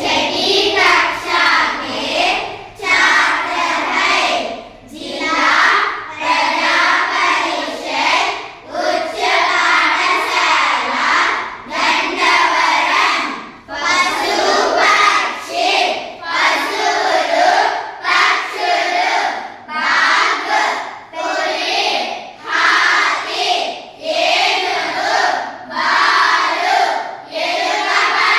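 A group of children chanting words together in unison, in short rhythmic phrases about one a second, reciting vocabulary in chorus.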